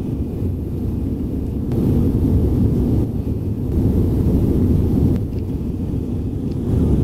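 Steady low rumble of jet engines and rushing air heard inside the passenger cabin of a Canadair regional jet descending on approach.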